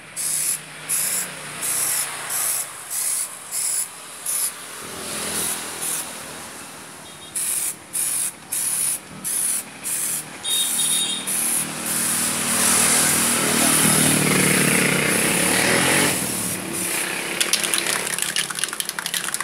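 Aerosol spray can hissing in a run of short bursts of about half a second each, then from about twelve seconds in a long continuous spray lasting some four seconds.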